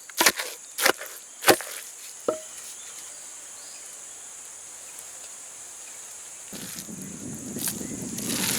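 Four sharp chopping strikes on wood in the first two and a half seconds, over a steady high chirring of insects. Near the end a rougher rustling noise sets in, with a few more knocks.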